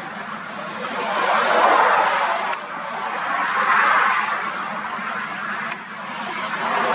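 Road traffic: vehicles passing on a road, their tyre noise swelling up and fading away twice.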